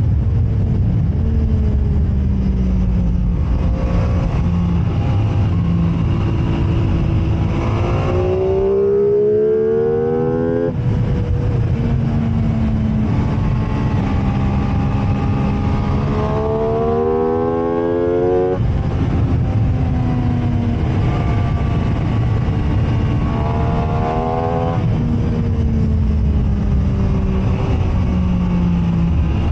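MV Agusta F3 675's three-cylinder engine ridden hard on a race track: the revs climb sharply three times, each climb cut off suddenly, with lower-rev stretches between them. A heavy low rumble of wind and road noise runs underneath.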